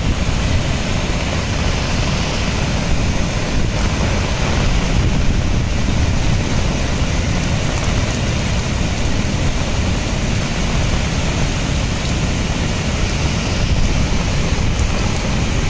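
Floodwater rushing over a dam's spillway weir in a steady, loud wash of noise, with wind buffeting the microphone. The reservoir's gates are open to release water during the cyclone.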